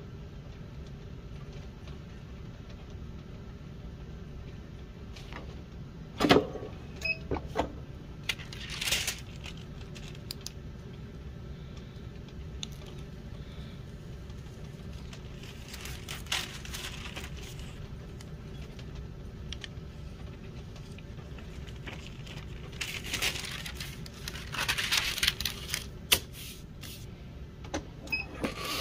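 Scattered handling noises over a steady low hum: a sharp knock about six seconds in, then several short rustling scrapes and clicks, and a sharp click near the end.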